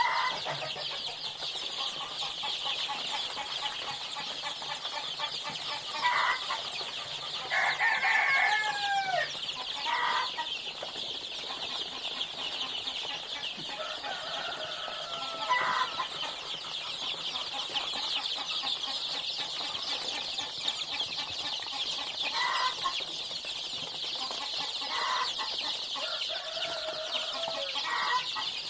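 A brooder full of domestic chicks peeping without a break, a dense high chorus of cheeps. Louder, lower calls break in every few seconds, some of them sliding in pitch.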